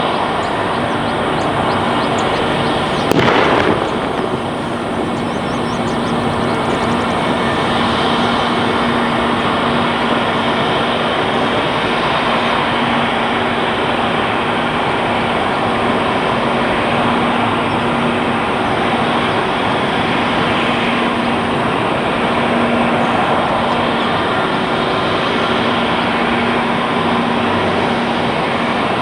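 Airbus A320 jet engines running on the ground, a steady loud rush with a faint low hum, as the airliner taxis and lines up. A short sharp knock about three seconds in.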